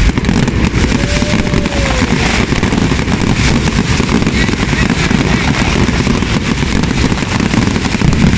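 Fireworks going off in a dense, continuous barrage of rapid crackling and popping, loud and without a break.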